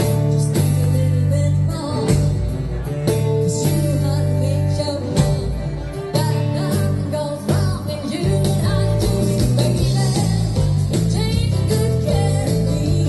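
A live dance band playing an uptempo rock-and-roll number: a female lead singer over electric guitars, bass and a drum kit, amplified through the stage PA.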